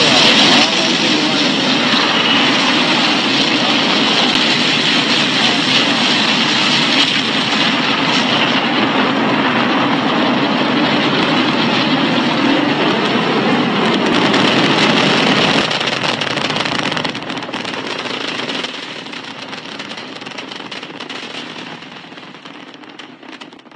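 Rocket engine roar at launch: a loud, crackling rumble that holds steady for about fifteen seconds, then fades away over the rest.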